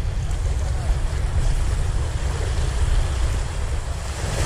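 Steady wind rumble on the microphone, over small waves washing against the breakwater's rocks.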